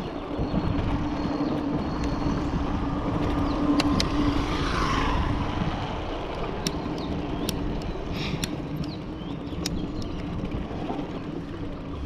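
Wind on the microphone and tyre noise as a mountain bike rolls over a brick-paved road, with a steady hum through most of it and a few sharp clicks from the bike.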